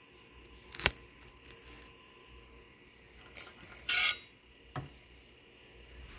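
Light handling sounds of food prep on a cutting board: a sharp click about a second in, a short scraping rub about four seconds in as a hot dog piece is moved into place, and a small knock soon after.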